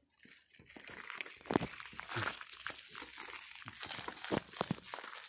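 Loose gravel and dirt crunching: a dense, irregular run of small crackles and scrapes that starts about half a second in.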